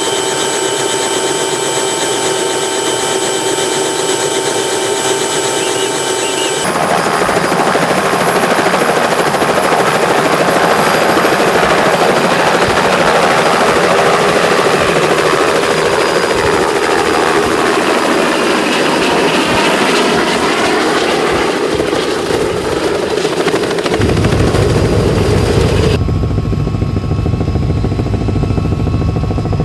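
Helicopter running loud: first a steady whine with several fixed tones, then heavier engine and rotor noise with slowly sweeping pitch bands. The sound changes abruptly about seven seconds in and again near the end, where a deeper low rumble takes over.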